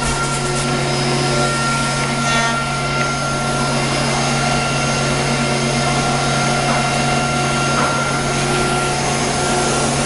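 Rotary automatic-tool-change CNC router running, routing curved wooden door parts: a steady spindle whine over a constant motor hum.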